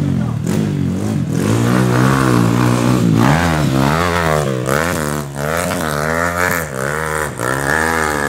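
Off-road dirt bike engine running hard, steady at first, then from about three seconds in revving up and down in quick throttle surges as the bike claws up a steep, loose dirt climb.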